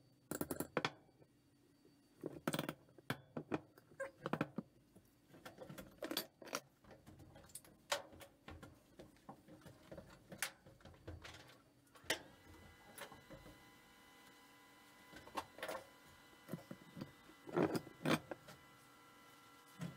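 Steel parts and hand tools handled on a wooden workbench: scattered clinks, clunks and knocks. A steady electrical hum with several fixed tones starts about twelve seconds in.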